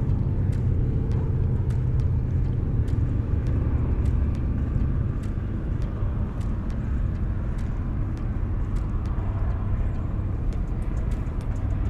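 A steady low outdoor rumble, with faint, irregular light clicks scattered through it.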